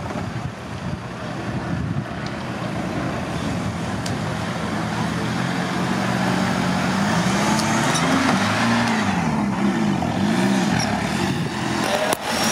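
Engine of a small off-road 4x4 revving up and down as it works through a mud hole, its pitch rising and falling several times in the second half.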